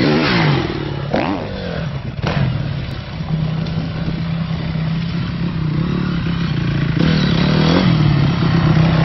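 Dirt bike engine revving. The pitch falls at the start, rises and falls again about a second in, then holds steady from about three seconds on, with one short rev near the end.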